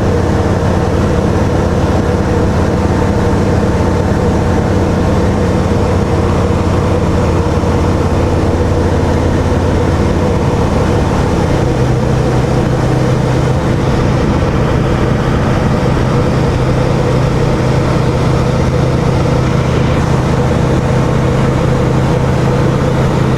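Light aircraft's piston engine and propeller running with a steady drone; its low note steps up a little higher about halfway through.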